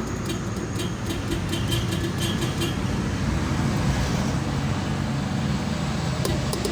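Road traffic with a heavy truck's engine running, a steady rumble. A quick run of light taps, about four a second, sounds during the first three seconds.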